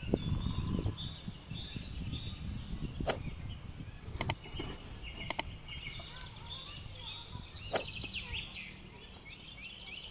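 Outdoor ambience with birds chirping throughout, a low rumbling noise for the first six seconds or so, and a handful of sharp clicks or knocks.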